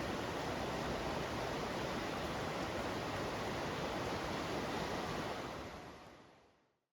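Mountain river rushing over rocks, a steady dense roar of water that fades out near the end.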